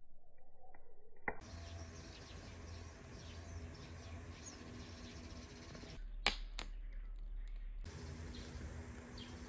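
Garden songbirds chirping and calling in short scattered notes over a faint outdoor background. There is a sharp click about a second in, and two more sharp clicks close together about six seconds in.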